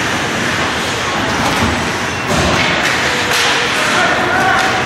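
Ice hockey game sounds in a rink: sharp thuds and knocks of sticks, puck and boards, two standing out in the second half, over a steady wash of noise, with distant voices calling near the end.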